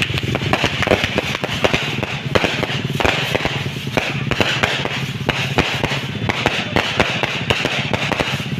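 Fireworks and firecrackers going off in a dense, irregular run of sharp pops and cracks, several a second, over a steady low hum.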